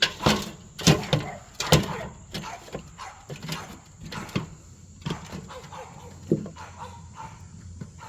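A dog barking repeatedly: a cluster of loud, sharp barks in the first two seconds, then fainter, spaced-out barks.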